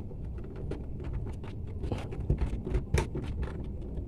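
Insulated wires being pushed and folded into a small plastic junction box by hand: irregular light clicks and rustles of cable and plastic, with a sharper click about three seconds in.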